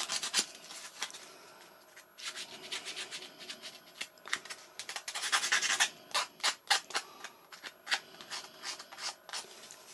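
Small flat metal file scraping and rasping against the edge of a foam winglet, in short groups of quick back-and-forth strokes with brief rests between them.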